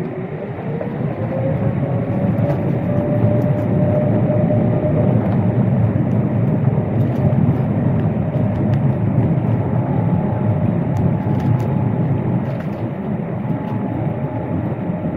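Boeing 787-8's GEnx-1B turbofan engines spooling up for takeoff, heard inside the cabin: a whine rising in pitch over the first few seconds as the sound grows louder, then a steady engine roar over a deep rumble.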